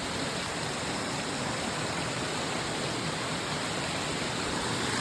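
Steady rush of a stream cascade: water falling and running over rock.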